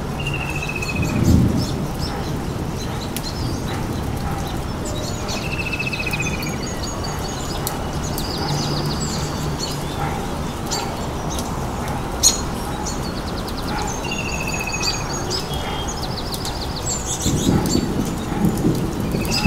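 Birds chirping and trilling over a steady hiss, the same run of calls coming round again about every nine seconds. A deep rumble like thunder builds near the end.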